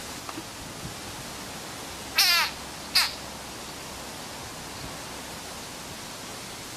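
A frog seized by a snake giving shrill distress screams: two short cries, about two seconds in and again a second later, each a rapid pulsing call sliding down in pitch, over a steady hiss.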